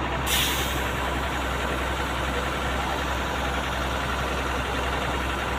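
Heavy diesel machinery engine running steadily at idle, with a short burst of hiss about a third of a second in.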